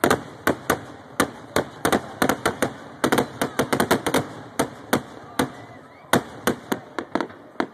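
Fireworks display: aerial shells bursting overhead in a rapid, irregular string of sharp bangs, several a second. It starts suddenly with a loud burst, is densest in the middle and thins out toward the end.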